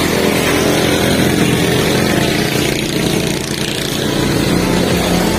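A motor vehicle engine running steadily nearby.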